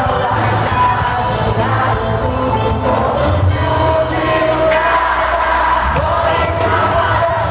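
Live rock band music with a lead voice singing, and the crowd singing along.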